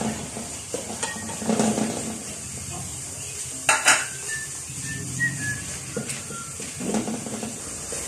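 Ground pork sizzling in a frying pan while a wooden spatula stirs and scrapes through it. There is one loud, sharp clank a little under four seconds in.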